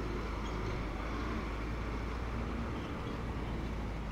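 Steady outdoor city ambience: a low, even rumble of street traffic with a faint hiss of general town noise.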